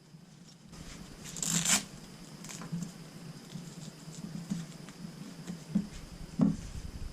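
Hands handling a tree-climbing saddle and its webbing: rustling and scraping of fabric and straps, loudest about a second and a half in, with a few light clicks and two sharper knocks of hardware near the end.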